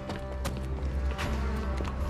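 Background music score with a steady deep bass and sustained tones, punctuated by two sharp percussive hits.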